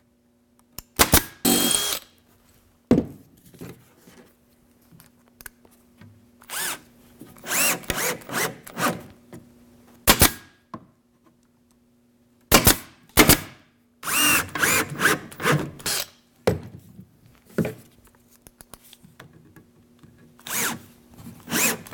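A Cadex 21-gauge pneumatic pin nailer firing single sharp shots several times as it tacks jamb extensions. A small cordless drill/driver runs in short bursts of a second or two while fastening the frame's corner.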